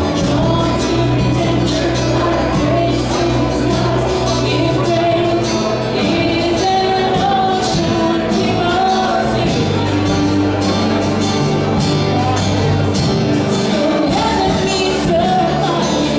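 A live worship band and singers performing a song, with sung notes held over a bass line and a steady beat.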